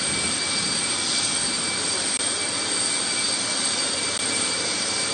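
Steady jet-turbine noise on an airport apron: an even rush with a thin, high whine that holds constant.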